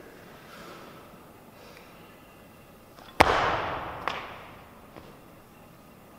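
A weightlifter's feet stamping onto the wooden lifting platform as she splits under a 78 kg barbell in the jerk: one sharp bang about three seconds in, with the bar and bumper plates rattling and the hall echoing briefly after it. A lighter knock follows about a second later.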